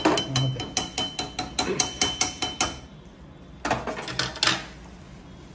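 Steel ladle knocking and scraping against a metal kadai as thick gravy is stirred: a quick run of sharp metallic clinks, about five a second with a faint ring, for nearly three seconds. After a short pause comes a second, shorter cluster of knocks.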